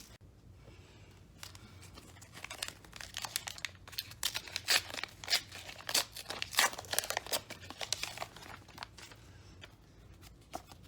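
Plastic wrapper of a McDonald's Pokémon card pack being torn open and crinkled in the hands, a dense run of sharp crackles that is loudest in the middle.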